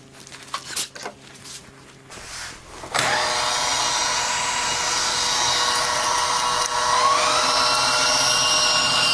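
A few handling clicks, then about three seconds in a router motor starts up suddenly and runs with a steady high whine alongside the cordless drill that turns the router lathe. About seven seconds in, the pitch rises slightly as the drill is sped up for the final smoothing pass.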